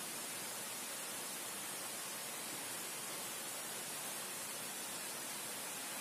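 Steady, even hiss, brightest in the high range, with no distinct events in it.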